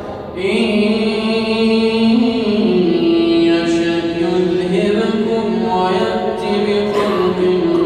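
A solo male voice reciting the Quran in the melodic, drawn-out style of tajwid, in maqam Hijaz. He holds long notes with slow pitch turns, starting a new phrase after a short breath just under half a second in.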